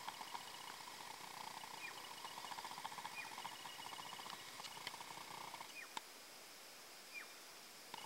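Faint outdoor wildlife sounds: a fast, evenly pulsing trill that stops about six seconds in, with a few short descending bird chirps and an occasional click.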